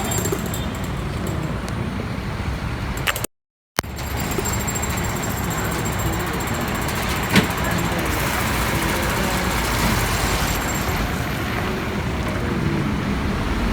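Road traffic noise: a steady rumble of vehicles on a congested road. The sound cuts out completely for about half a second near the start, and a sharp click stands out about seven seconds in.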